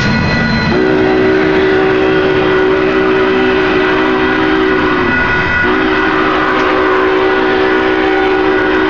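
Union Pacific 844 steam locomotive's chime whistle sounding two long blasts. The first holds for about four seconds and sags in pitch as it cuts off. The second starts after a half-second break. Underneath is the steady rumble of the passing passenger cars.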